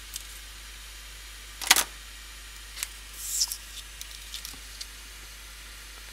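Handling noises from side cutters, copper tape and a card letter on a cutting mat: one sharp click about two seconds in, the loudest sound, then a short papery rustle about a second later and a few faint taps, over a steady low hiss.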